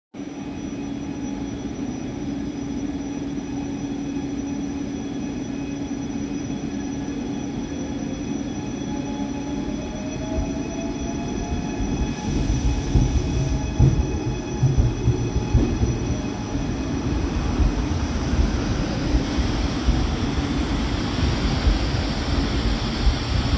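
Alstom Coradia Meridian (ETR 526) electric multiple unit pulling in along the platform. A steady electric hum gives way, about halfway through, to a louder rumble of wheels on rail with irregular clunks as the cars roll past close by.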